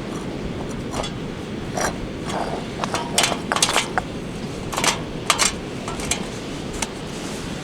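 Light metallic clinks, knocks and scrapes of camp gear being handled, about a dozen scattered short sounds, thickest in the middle, over a steady rush of surf and wind.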